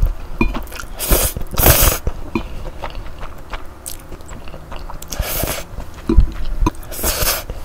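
A person slurping up spicy stir-fried instant noodles close to the microphone in about four loud slurps, with chewing and small wet mouth sounds between them.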